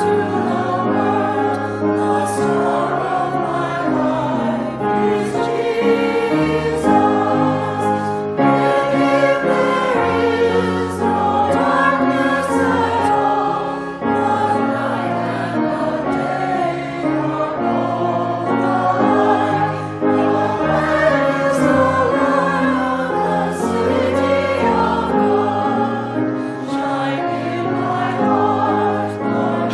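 Church choir singing sacred music in held chords that change every second or two.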